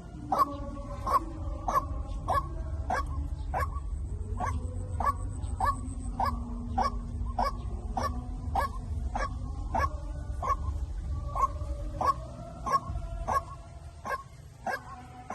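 White-breasted waterhen lure call: a long run of short, pitched notes repeated about three times a second, over a steady low rumble.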